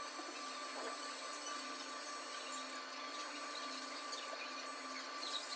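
Faint steady whir and hiss of a small tool cleaning residual waterproof adhesive off an iPhone frame. The upper hiss breaks off briefly a few times.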